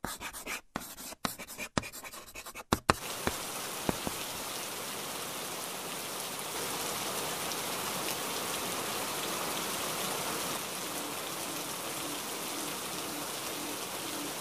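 Steady rain falling, an even hiss with a couple of single drip ticks at first. In the first three seconds the hiss is chopped into short stuttering bursts with sudden gaps.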